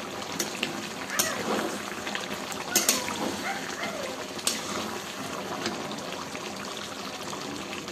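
Thick chicken curry gravy bubbling and sizzling in a metal kadai while a steel spatula stirs it, with a few sharp clicks of the spatula against the pan in the first half. She is stirring it so it does not stick and burn.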